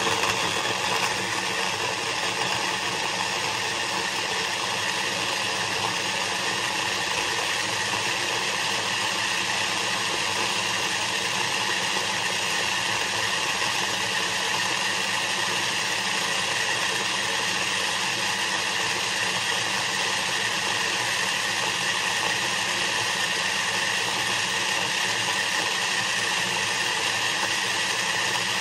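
Blender running steadily, blending frozen strawberries with heavy cream into ice cream; an even, unchanging motor noise.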